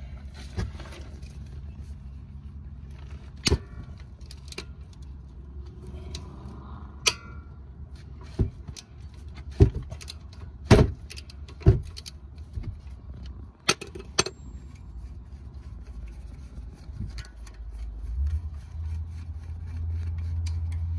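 Metal hand tools clicking and knocking as a breaker bar with a 12 mm socket and a wrench work loose the bolt behind a car's front brake caliper: a string of sharp separate knocks, loudest around the middle. A low steady hum runs underneath and grows louder near the end.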